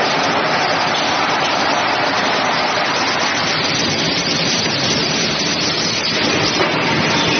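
Automatic plywood sanding line running: a steady, loud machinery noise from the sander and its conveyor, even throughout with no distinct knocks or tones.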